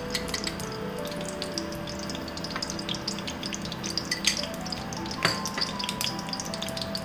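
Oil heating in a stainless steel frying pan, crackling with scattered small pops that come irregularly, a few of them sharper, about five seconds in.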